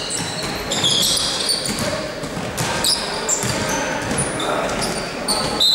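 Basketball game play on an indoor court: the ball bouncing, and basketball shoes giving many short, high squeaks on the floor.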